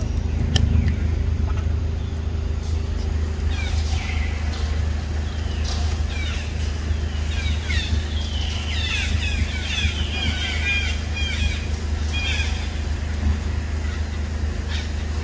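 A steady low rumble under a run of short, high chirping calls. The calls start about four seconds in and come thickest a little past the middle.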